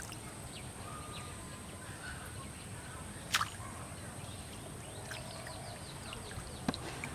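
Quiet outdoor ambience with faint bird chirps and a steady high hum, broken by two sharp clicks, one near the middle and one near the end.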